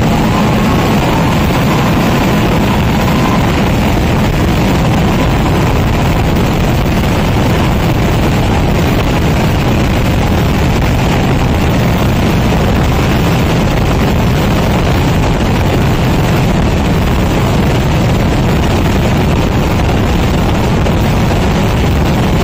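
Dense barrage of fireworks explosions going off so rapidly that they merge into one loud, continuous rumble.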